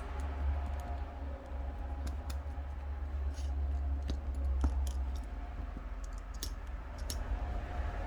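Scattered light clicks and taps of a plastic tool working adhesive strips down onto a phone's frame, about eight in all, over a steady low hum.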